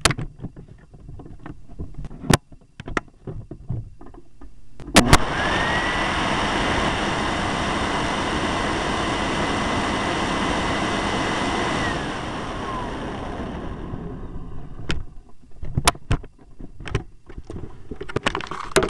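Sanitaire SC887 upright vacuum switched on with a sharp click about five seconds in: the motor whines up to speed and runs steadily for about six seconds, with air rushing past a microphone inside the bag compartment. It is then switched off and winds down with a falling whine. Scattered knocks and clicks of handling come before and after.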